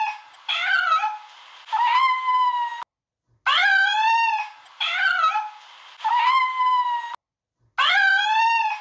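Domestic cat meowing repeatedly: about six drawn-out meows, each around a second long, with short pauses between them.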